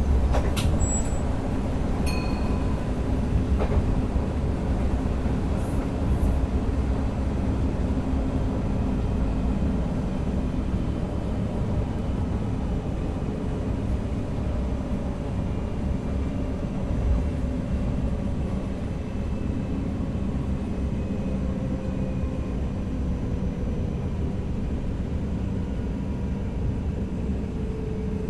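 NS DDZ electric double-deck train running, heard from the driver's cab: a steady low rumble of wheels on track. A few sharp clicks come near the start, and a faint whine slowly falls in pitch over the second half.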